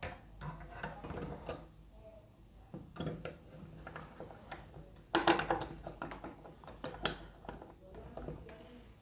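Handling noise of scale model car chassis parts being fitted together by hand: scattered light clicks, taps and rubbing of the parts against each other, with a louder clatter about five seconds in.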